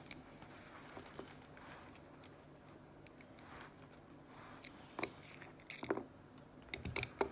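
Quiet handling of a screwdriver and small screws, with a few short sharp clicks about five and six seconds in and again near the end.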